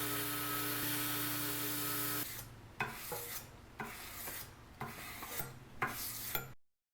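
Sandpaper rubbed by hand along a Damascus steel knife blade in separate rasping strokes, about two a second, the blade being polished through the grits to 500. For the first two seconds a power tool runs with a steady hum and hiss before the hand strokes begin; the sound cuts off abruptly near the end.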